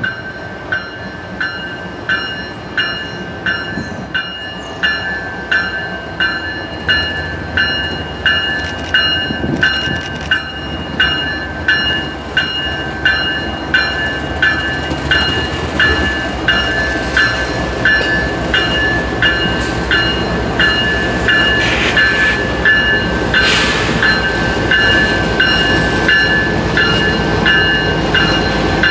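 Railroad grade-crossing bell ringing steadily, about two strokes a second, while the rumble of an approaching train builds from about halfway through.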